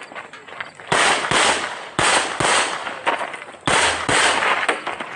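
Glock 47 9mm pistol firing in quick pairs, about three double taps each with the two shots under half a second apart, every shot echoing.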